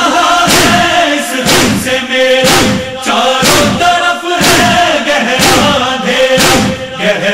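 Urdu noha: a male chorus holding a sustained wordless chant between the lead singer's lines, over a heavy thumping beat about once a second.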